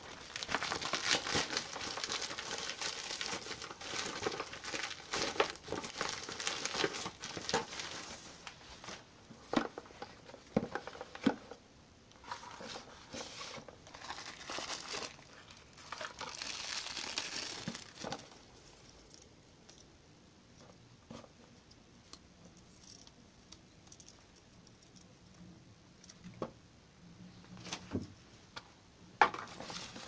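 Clear plastic packaging crinkling and rustling as it is handled, dense for the first ten seconds or so, then in short bursts with scattered taps and knocks and a sharper knock near the end.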